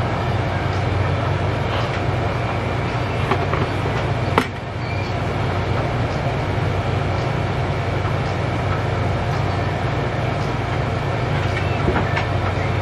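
Steady low hum with an even background hiss, like a machine running, broken by one sharp click about four and a half seconds in.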